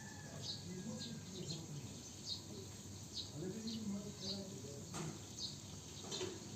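A bird chirping over and over, short high chirps about twice a second, with faint low voices underneath.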